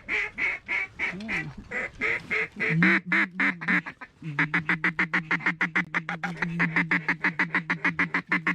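Duck call blown in a long run of quacks, about three a second at first, then a faster, even chatter of about six a second over a steady drone from about four seconds in.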